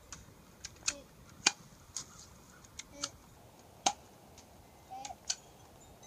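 Airsoft gun firing shot after shot: sharp snapping clicks, about eight to ten at uneven intervals, the loudest about a second and a half in and just before four seconds.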